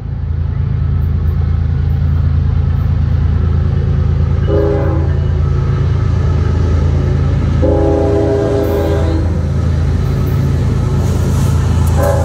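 Norfolk Southern diesel freight locomotive approaching with a steady low engine drone, sounding its air horn: a short blast about four and a half seconds in, a longer blast around eight seconds, and another short one starting at the very end.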